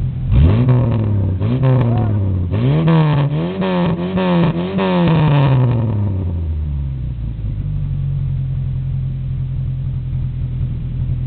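Lada VAZ 2101's inline-four engine blipped through its exhaust while stationary. It is idling steadily, gives two short revs, then a run of quick rev blips, and settles back to a steady idle about six seconds in.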